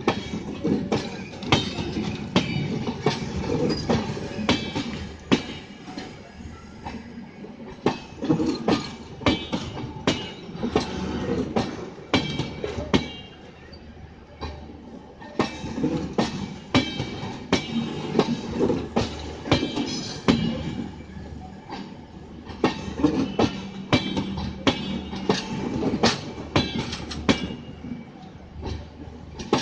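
Passenger train rolling past slowly, its wheels clacking over rail joints in clusters of sharp clicks over a low rumble. The clusters come every seven or eight seconds with short lulls between, as each coach goes by.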